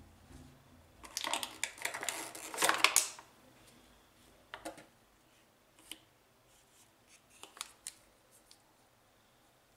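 Thin plastic packaging tray crackling and crinkling as it is pulled out of a cardboard box, for about two seconds starting about a second in, followed by a few separate light clicks and taps of packaging being handled.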